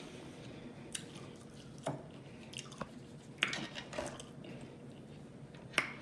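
A person chewing food, with a handful of short wet mouth clicks spread irregularly through the chewing.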